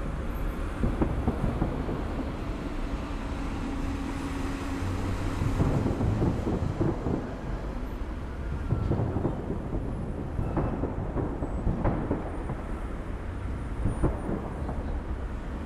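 Fireworks display: a dense, continuous rumble of overlapping booms and bangs, with louder bursts about a second in, around six and nine seconds, and near the end.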